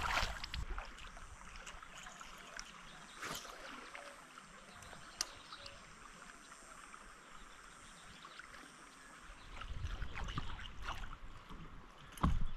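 Kayak on a flowing river: a steady hiss of moving water with a few light knocks against the hull. From about ten seconds in come louder irregular splashes and low rumble as paddling picks up, with a sharp knock near the end.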